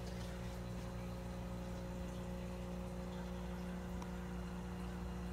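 Aquarium pump equipment humming steadily, with the soft hiss of bubbles from an air stone in the tank.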